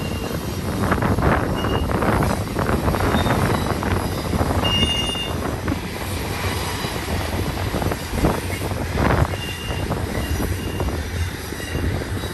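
Freight train's loaded container cars rolling past, a steady rumble of steel wheels on rail with clanks. Brief high wheel squeals come about 2 s, 5 s and 10 s in as the wheels work through the curve.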